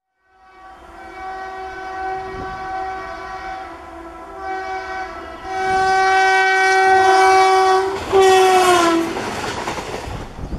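Electric locomotive's horn sounding in several blasts, the longest about two and a half seconds. The last blast drops in pitch as the locomotive passes, followed by the rushing clatter of the train going by.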